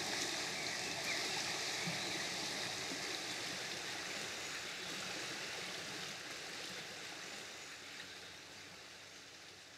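Shallow river rushing over stones, a steady even hiss of moving water that fades away gradually toward the end.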